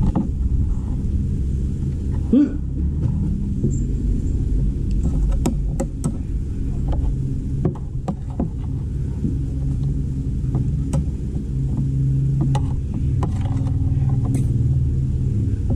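A steady low mechanical rumble, like a running engine, with scattered sharp clinks of spoons and forks on plates and a serving tray.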